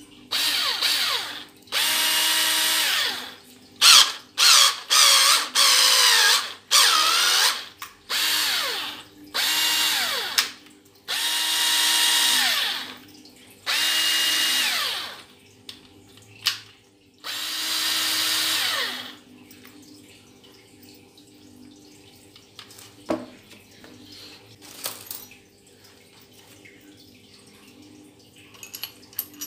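Black+Decker BDCD8 7.2V cordless drill driver run with no load in about ten short trigger bursts, each a high motor whine that spins up to a steady speed and winds down on release; it is single-speed, so every burst runs at the same pitch. After the bursts, a few light clicks and one knock follow as the bit is handled and pulled from the chuck.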